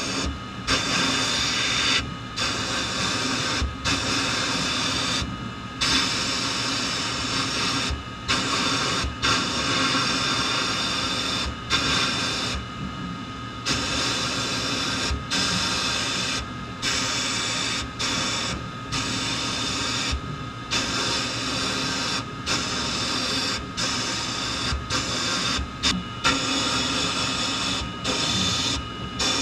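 Abrasive blasting in a sandblast cabinet: the blast gun's stream of air and grit hisses steadily as it strips paint from a small pressed-steel toy part. The hiss breaks off for a moment every couple of seconds as the trigger is let go, over a steady low hum.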